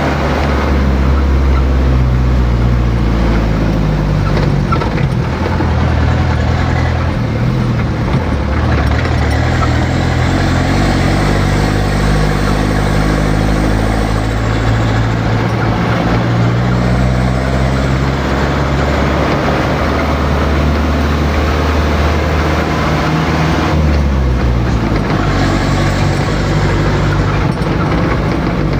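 Motor vehicle engine running continuously, its pitch slowly rising and falling as it changes speed, with a steady rushing noise over it.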